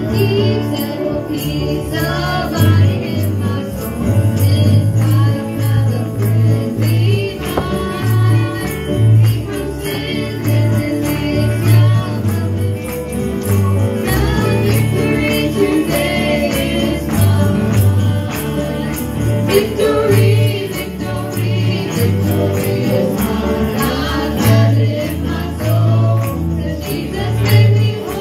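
A live church worship band playing a gospel song: several voices singing over piano and guitar, with a pulsing bass line and a tambourine jingling.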